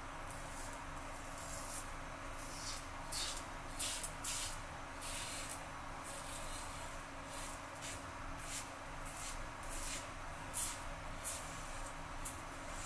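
Merkur 34G double-edge safety razor scraping through lathered stubble in a series of short strokes, each a brief high scratch, irregularly spaced about one or two a second.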